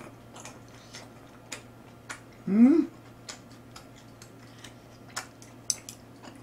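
Close-up mouth sounds of someone chewing grilled beef: scattered wet clicks and smacks. About two and a half seconds in comes one short hummed "mm?" that rises in pitch.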